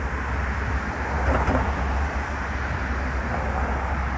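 Steady low rumble under a wash of outdoor noise, swelling slightly about a second in.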